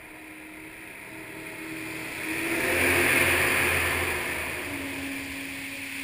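Jet boat passing at high speed: its engine note and the rush of its water jet and spray build to a peak about three seconds in, then fade as it goes by, the engine's pitch dropping as it passes.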